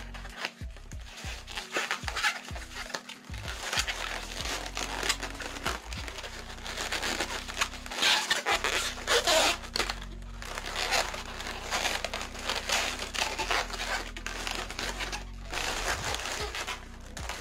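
Long latex modelling balloons rubbing, crinkling and squeaking against each other as they are twisted and worked together by hand, in an irregular run of rustles and sharp little creaks.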